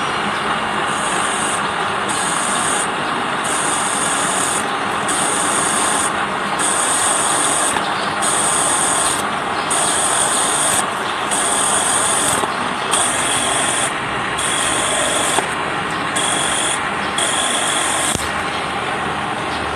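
Milling machine cutting chamfers in metal: a steady machining noise with a high-pitched cutting sound that comes and goes in regular spells about every second and a half.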